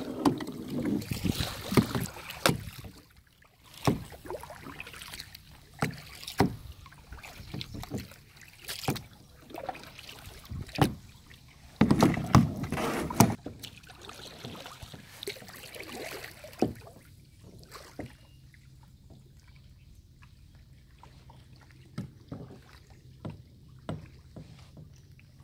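Kayak paddling: double-bladed paddles dipping and splashing irregularly, with water sloshing and the odd knock. It goes quieter about two-thirds of the way through, leaving only a few faint ticks.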